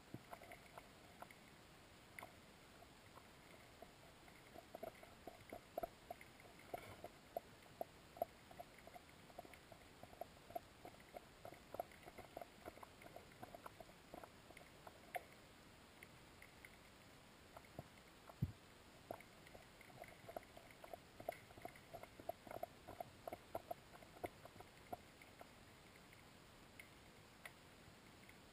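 Near silence underwater, broken by faint, irregular clicking and ticking picked up through a camera's waterproof housing. The clicks come in clusters, with one deeper knock past the middle.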